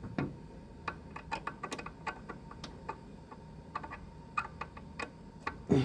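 Irregular runs of light clicks from keys being pressed on a computer keyboard, about twenty presses, over a faint steady whine.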